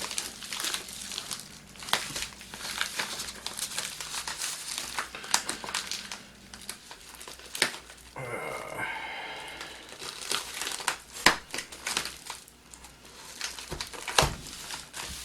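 A shipping package being cut open with a knife and pulled apart: crinkling and crackling of the packaging, with many sharp clicks and some tearing.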